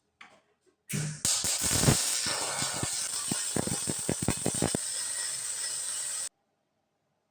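Electric welding arc sizzling and crackling, with irregular sharp pops. It starts about a second in and cuts off abruptly near the end.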